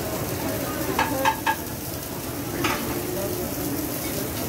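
Steady sizzle of roti canai flatbreads cooking on a flat-top griddle. About a second in there are three quick metal clinks, and another a little later, from a metal serving spoon against the stainless steel sauce pans.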